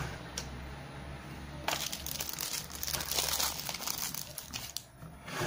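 Plastic packaging crinkling as it is handled and unwrapped, starting a little under two seconds in and easing briefly near the end.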